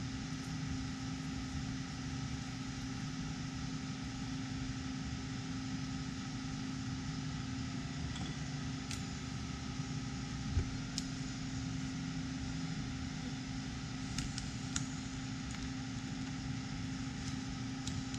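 Steady humming drone from a running machine or fan, with a few scattered light metallic clicks as a socket ratchet tightens the float-bowl nut on a lawn mower carburetor.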